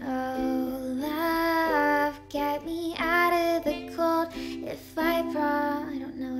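A young woman singing a pop song, accompanying herself on a strummed ukulele.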